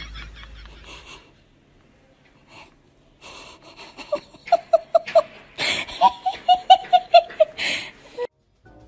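A person laughing in a quick run of short, high, breathy bursts, about four or five a second, starting about four seconds in and stopping abruptly near the end.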